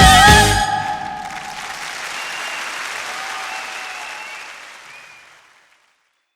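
The song's last held, wavering vocal note and the band's final hit end about half a second in, then a concert audience applauds, the applause fading away to nothing near the end.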